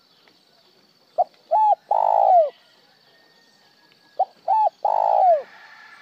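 Spotted dove cooing two phrases, each of two short notes followed by a longer note that falls away at its end.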